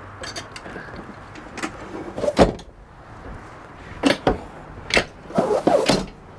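Clunks and knocks of a boat's padded transom seat and its hinged fittings being handled and folded down into a lounge: a series of sharp knocks, the loudest about two and a half seconds in, and a quick run of knocks near the end.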